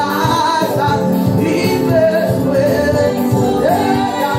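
Gospel worship music: a woman sings the lead through a microphone over live accompaniment, her voice holding and bending notes.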